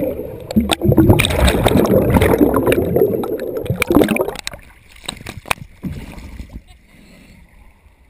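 Air bubbles and water churning around an underwater camera, loud and turbulent. About four and a half seconds in the camera breaks the surface and the sound drops to a few splashes and drips, then fades.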